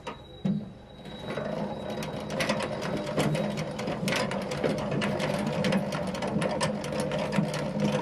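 Hand-cranked two-frame honey extractor spinning comb frames in its metal drum to fling the honey out. It starts about half a second in with a steady mechanical hum, then builds over the next second or two into a fast, continuous clatter of gear and basket ticks.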